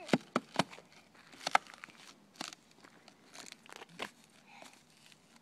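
Thin ice of a frozen puddle cracking and crunching underfoot: irregular sharp cracks, several close together in the first second, then scattered ones.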